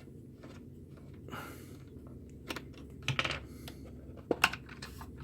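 Irregular small clicks and taps of a small screwdriver working screws out of a plastic multimeter case, the loudest a sharp click about four and a half seconds in.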